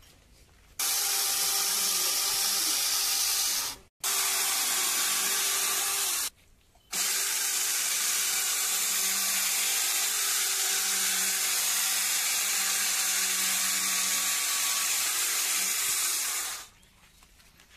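Two-handed Sharpex electric chainsaw running steadily as its chain cuts crosswise through a log. It starts abruptly about a second in, breaks off briefly twice in the first seven seconds, then runs on and stops shortly before the end.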